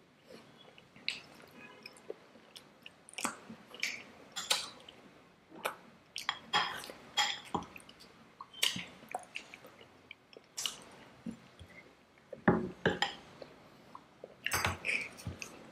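Close-up chewing and wet mouth smacks of people eating soft Indian sweets, an irregular run of sharp little clicks and squishes.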